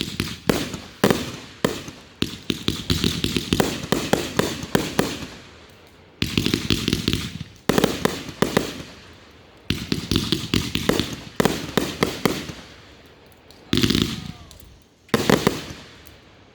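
Consumer fireworks firing: rapid runs of sharp bangs and crackling in several clusters, with short lulls between them and two loud reports near the end.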